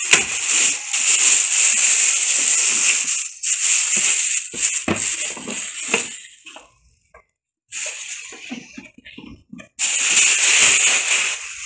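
Clear plastic bag crinkling and rustling as it is pulled off a new inkjet printer and handled, in several bursts with a short pause in the middle.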